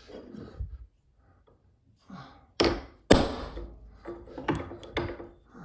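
Wooden vise parts being handled on a workbench: a series of sharp wooden thunks and knocks, the two loudest about half a second apart near the middle, followed by a few lighter knocks.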